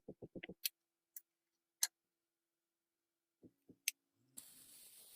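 A rapid run of small hard clicks, then a few sharp single clicks, followed about four seconds in by a steady hiss lasting about a second.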